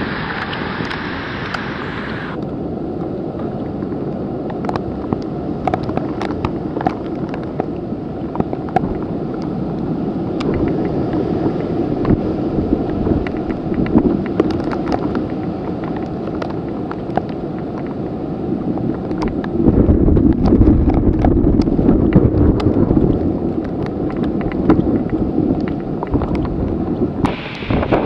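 Typhoon wind gusting hard against the camera microphone in driving rain, a steady low rumble with scattered ticks of raindrops striking the camera. The gusts are strongest about two-thirds of the way through, and near the end the sound changes suddenly to a brighter rain hiss.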